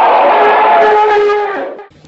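Elephant trumpeting: one long, loud, brassy call that starts with a short upward slide in pitch, holds steady and fades out just before the end.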